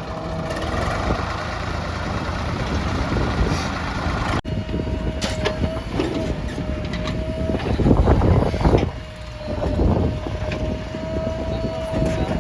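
Diesel earthmoving machinery running: a backhoe loader working near tractors. An abrupt cut about four and a half seconds in is followed by a steady high whine over the engine noise, with louder surges about two-thirds of the way through.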